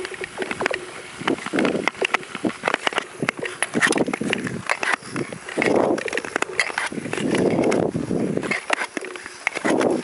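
Ice skates gliding on thin, clear lake ice, which answers with many sharp clicks and ringing chirps as the sheet flexes and cracks under the skaters' weight. A few longer scraping swishes of skate strokes come and go.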